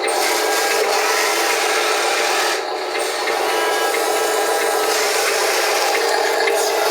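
Wheel loader running while it works the slope: a steady rasping, grinding mechanical noise with a whine from the drive.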